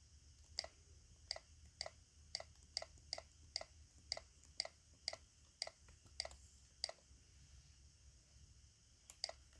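Keys on a Razer computer keyboard being pressed one at a time, a run of about thirteen clicks at roughly two a second, then two more near the end, as keys are tested for whether they respond.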